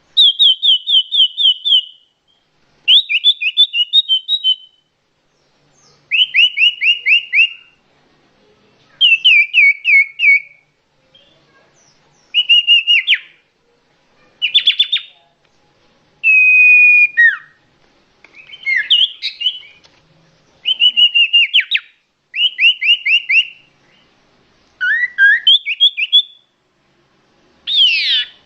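Common iora (cipoh) lure-call recording: loud, clear bursts of rapid, repeated downward-sliding whistled notes, each burst lasting one to two seconds and coming about every three seconds, with a few varied phrases, including one longer held whistle about halfway through.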